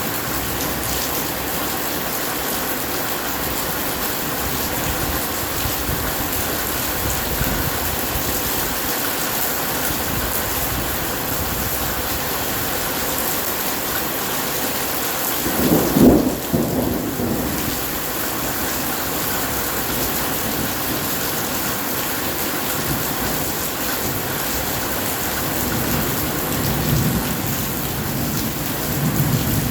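Steady heavy rain, with one loud, short thunderclap about halfway through and low thunder rumbling near the end.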